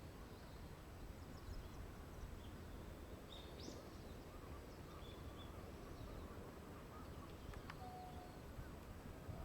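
Faint outdoor ambience: a steady low rumble with a few faint bird chirps, the clearest a short rising chirp a few seconds in.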